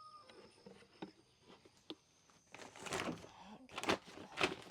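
Handling noise of goat feed being got out: a couple of sharp clicks, then three rough scraping, rustling bursts in the second half. A rooster's crow trails off at the very start.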